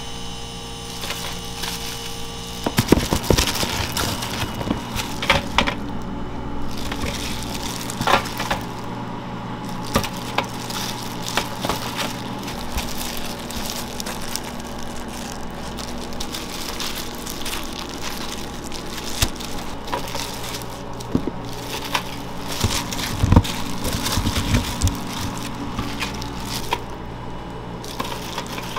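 Food-preparation handling noise: scattered clicks, knocks and crackles of utensils and food being worked, over a steady machine hum.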